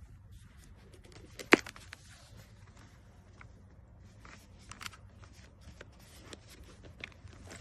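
Handling noise: scattered small clicks and rustles over a low steady hum, with one sharp click about a second and a half in.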